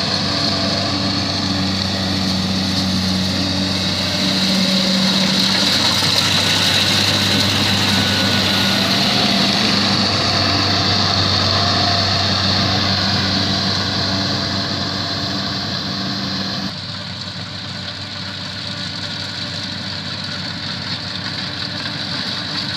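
Rice combine harvester running under load: a steady diesel engine drone with a high, even whine from the threshing and cutting machinery. About three-quarters of the way through, the sound drops abruptly to a quieter, thinner run.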